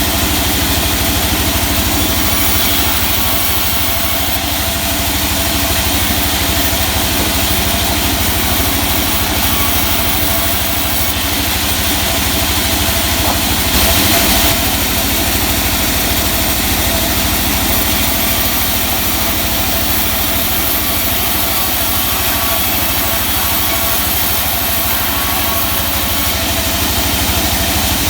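Sawmill machinery running steadily: an engine-driven saw rig with a continuous hum and several steady tones, briefly a little louder about halfway through.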